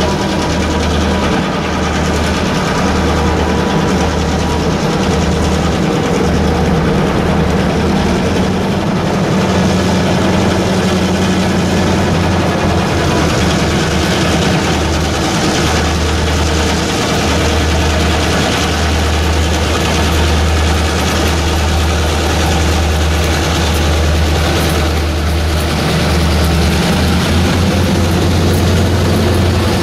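EMD GP38 diesel-electric locomotives with their two-stroke V16 diesels running steadily, a deep continuous drone.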